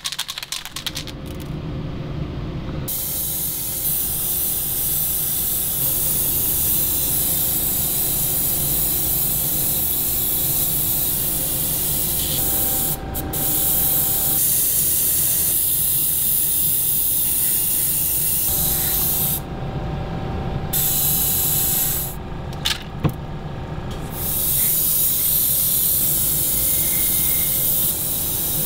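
Gravity-feed airbrush spraying paint with a steady hiss. The hiss cuts out briefly a few times as the trigger is let off, over a lower steady hum.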